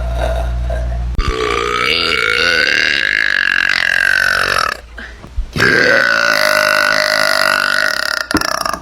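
A woman's long, loud belches: two drawn-out burps of about three seconds each, with a short pause between them, after the tail end of an earlier one.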